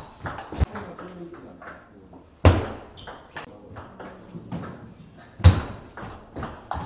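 Table tennis rally: a run of sharp clicks as the celluloid ball is struck by the rackets and bounces on the table, some with a short high ping. Two louder thuds come about 2.5 s and 5.5 s in, in a large hall.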